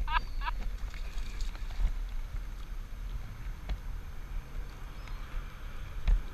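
Wind buffeting the microphone and water moving around a sit-on-top kayak, with a quick run of short chirping bird calls in the first half second and a single knock about six seconds in.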